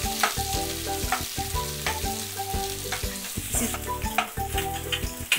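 Steel spoon scraping and clicking against a nonstick wok in quick repeated strokes as chopped cashews, almonds and coconut are stirred while frying in ghee, with a light sizzle: the dry fruits are being browned.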